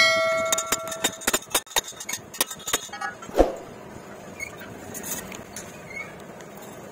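Chipping hammer knocking the slag off a fresh stick-weld bead on steel: a first blow that leaves the steel ringing for about a second, then a quick run of lighter taps and knocks that stops about three and a half seconds in.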